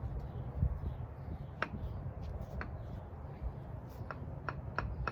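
Light metallic clicks from hand tools working on a CV axle boot and its clamp: a couple of single clicks, then four in quick succession near the end, over a steady low hum.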